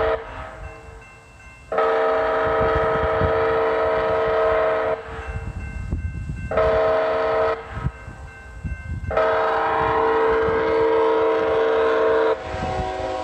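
Multi-chime train horn sounding the grade-crossing warning pattern: a long blast, a short blast, then another long blast, all on the same steady chord. A low rumble of the train runs underneath.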